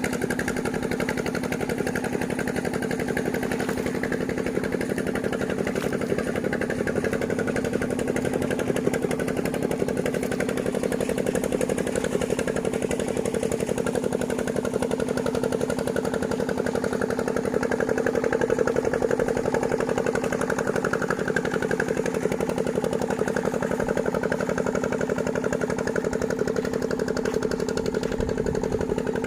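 An engine running steadily at constant speed, a continuous even hum without revving.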